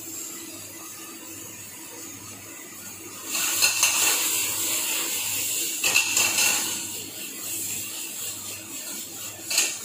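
Chopped mushroom, onion, potato and tomato sizzling in a frying pan over a high gas flame, with the pan flaring into flames. The sizzle and rush of the flames grow louder about three seconds in. There are short knocks of the pan against the burner twice, the second near the end.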